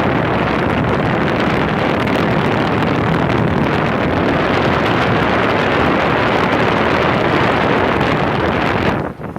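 Rheem central air conditioner's outdoor condensing unit running, its Genteq condenser fan blowing a loud, steady rush of air across the microphone. The sound drops sharply near the end.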